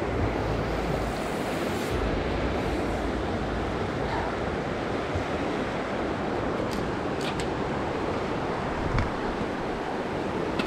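Fast river rapids rushing over rocks: a steady, even noise of moving water, with a few faint clicks about two-thirds of the way through.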